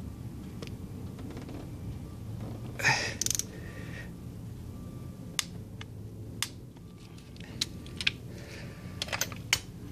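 Scattered light clicks and clinks of hand tools and metal parts being handled, with a short scraping rustle about three seconds in. A low steady hum sits underneath.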